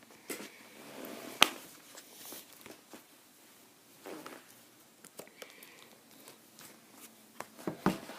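Handling noises as an iPad mini is fitted into a snap-on case: scattered light clicks and rustles, with a sharp click about a second and a half in and a few more clicks near the end.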